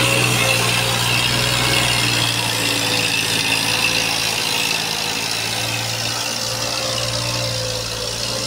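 Eicher 551 tractor's diesel engine running steadily as the tractor drives off pulling its trolley.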